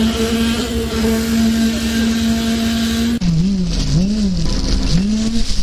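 Internal poker-type concrete vibrator running in wet concrete with a steady hum. About three seconds in the sound cuts to another vibrator whose hum repeatedly sags in pitch and recovers.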